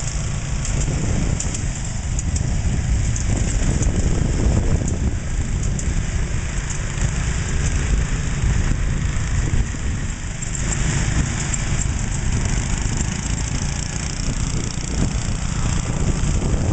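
Small garden tractor engines running steadily as several tractors tow loaded sleds over tilled ground, a constant low rumble with no sudden changes.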